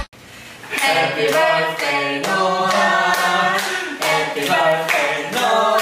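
A small group singing a birthday song together, with hand claps in time; the singing starts about a second in.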